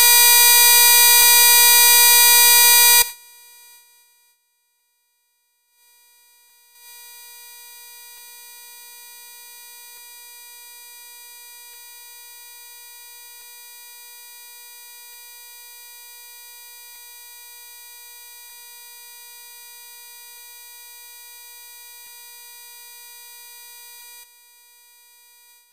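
A steady, buzzy electronic tone at one fixed pitch. It is loud for about three seconds, then cuts off. After a short silence it comes back much softer and holds steady until it drops away near the end.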